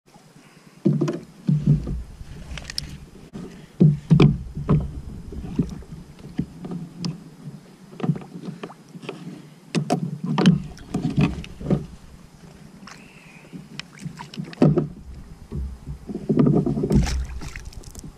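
Irregular knocks and bumps of gear and body against a plastic fishing kayak while an angler fights a hooked fish on a spinning rod, over a low rumble.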